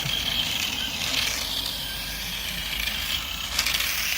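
A cheap toy RC car's small electric motor whining as its bare rear wheel hubs, with the tires taken off, spin and scrape against the ground in a burnout. The whine is steady and high, with a rasping, ratchet-like noise and a few sharp clicks over it.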